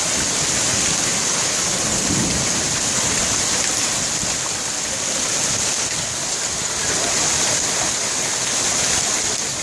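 Heavy hail pelting the harbour water and dock: a dense, steady hiss of countless hailstones striking.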